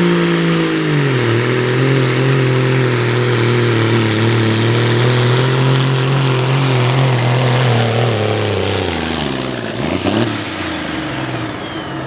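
Peterbilt semi truck's diesel engine at full throttle under the load of a pull. Its pitch drops about a second in as it lugs down, holds steady, then falls away about eight to nine seconds in as the throttle comes off, with a high whistle riding above that falls with it.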